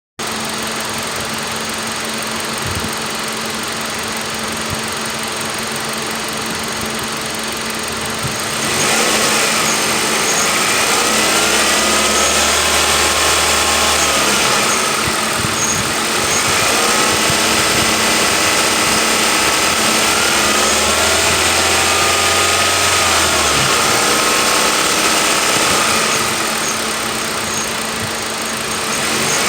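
2013 Hyundai i30 with its air-conditioning compressor humming while the engine runs, a hum the owner treats as a fault. A steady hum throughout; from about eight seconds in it grows louder, with whining tones that rise and fall.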